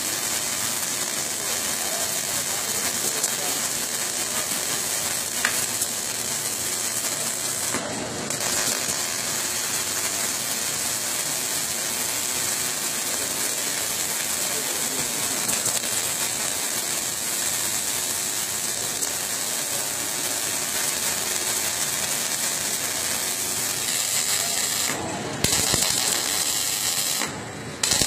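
Robotic arc-welding torch running a weld bead on a steel plate: a steady, loud crackle and hiss of the arc, with a few brief breaks, two of them near the end.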